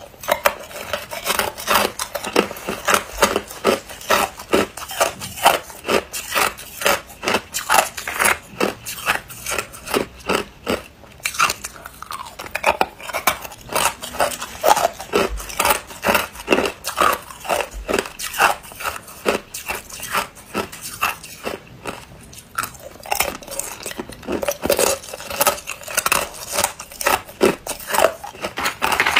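Hard, clear ice cubes being bitten and chewed, close to the mouth: a rapid, irregular series of sharp crunches, with a few brief lulls between bites.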